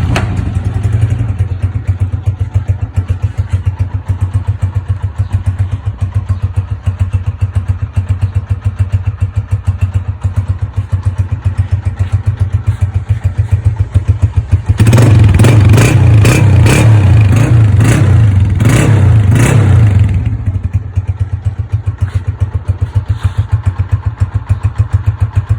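Honda CG125's single-cylinder four-stroke engine idling through a newly fitted aftermarket silencer, with a steady beat of exhaust pulses. About fifteen seconds in it is revved for about five seconds, then drops back to idle.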